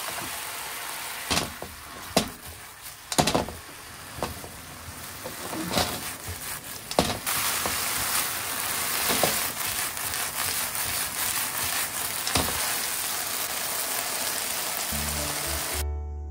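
Okra and chikuwa sizzling in a nonstick frying pan as a soy-based sauce is poured in and the pieces are stir-fried to coat them, with a steady hiss and several sharp knocks of the utensil against the pan. Piano music comes in near the end.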